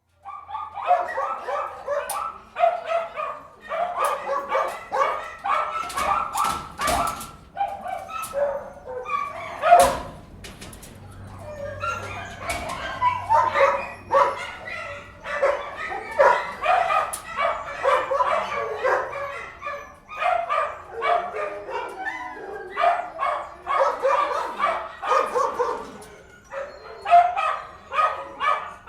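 Many dogs in an indoor kennel barking at once, a dense overlapping chorus that goes on throughout, with a few sharp bangs about a third of the way in.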